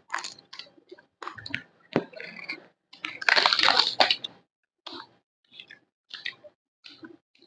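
Close-miked eating sounds: wet chewing and crunching of salad and fried fritters, in irregular bursts with a louder stretch about three seconds in.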